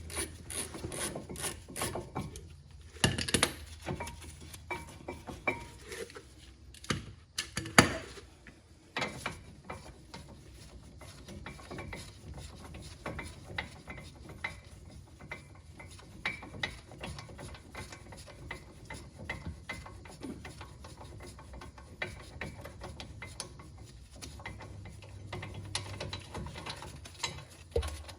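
Hand ratchet clicking in quick runs as the front brake caliper bracket bolts are backed out, with a few louder sharp metal knocks in the first third.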